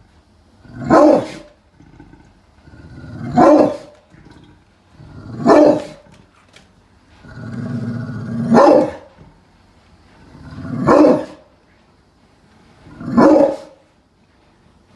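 Pitbull barking: six deep, loud single barks spaced about two and a half seconds apart, each building out of a short low growl.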